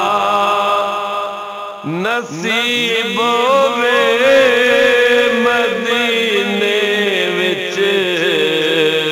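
Layered chanted vocals of a naat, held notes with wavering melodic glides. About two seconds in the voices break off and start a new phrase on a long sustained note.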